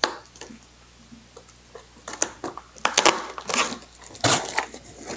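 Cardboard box flaps and brown packing paper being pulled open and crumpled by hand: irregular crackling rustles, sparse at first and thicker and louder from about two seconds in.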